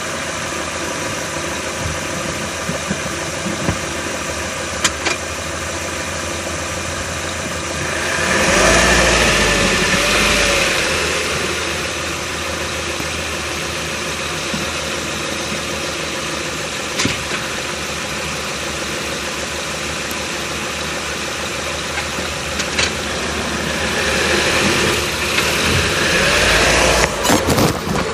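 2011 Chevrolet Cruze heard from a camera strapped to its front right strut: a steady engine and running hum that swells twice, about eight seconds in and again near the end, with a few short sharp clicks scattered through it. The clicks are the intermittent clicking the owner hears from the right side of the car and has not been able to get resolved.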